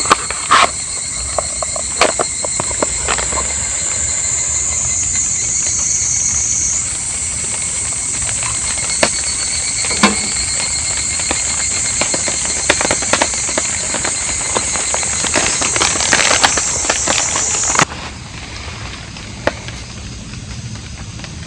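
Outdoor campsite ambience: a steady high-pitched hiss with faint steady tones, broken by scattered sharp taps and clicks. It drops away abruptly near the end.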